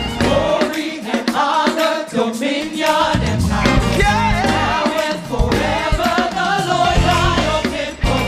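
Gospel worship music: a choir and worship team singing together over a live band. The bass and drums drop out briefly about a second in, then come back in.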